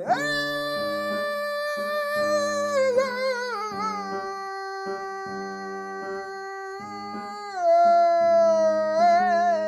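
Music: a voice singing long, held notes with wavering, ornamented turns, over piano chords struck about once a second. It grows louder about two thirds of the way through.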